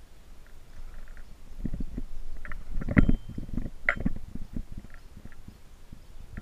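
A medicine ball thrown against a corrugated metal shed wall during wall-ball reps: two sharp knocks about a second apart near the middle, among low rumbling noise.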